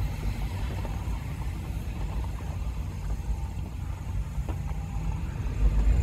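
Low, steady engine rumble.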